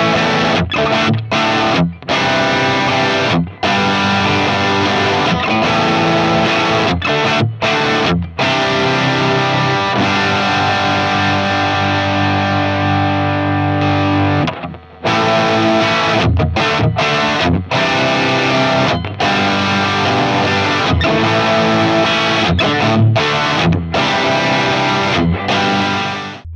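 Sterling by Music Man Valentine electric guitar played with distortion, riffing with short, sharp stops between phrases. About fourteen seconds in, one long ringing chord fades out before the riffing starts again.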